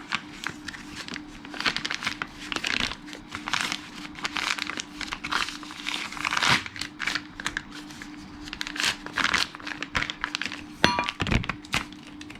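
Packaging crinkling and rustling as it is handled and opened, in irregular bursts, with a short ringing knock near the end.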